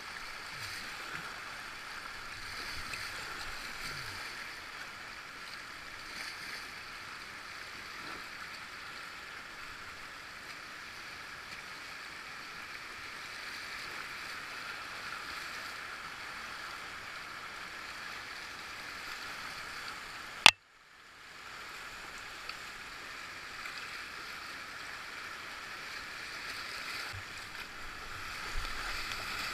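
Steady rush of river current flowing around a whitewater kayak. About twenty seconds in there is a single sharp click, followed by a brief drop-out to near silence before the water sound returns.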